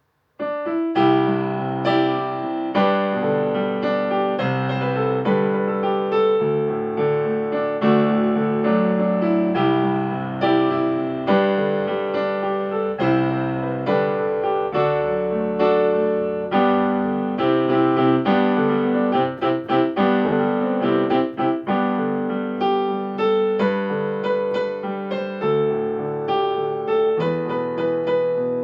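Solo piano playing a piece of sustained chords and melody notes, with a quicker flurry of notes about twenty seconds in.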